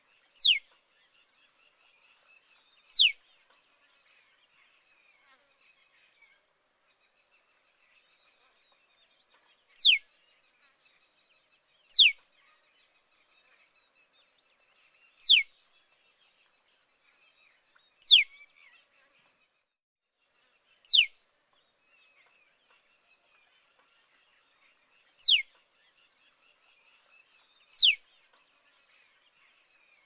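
Common tailorbird calls: nine short, sharp notes, each sweeping quickly down in pitch, spaced a few seconds apart over faint soft twittering.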